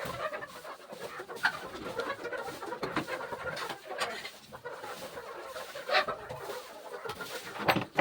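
A flock of chickens clucking and chirping together in a steady mass of small calls, with a few short, sharper calls standing out.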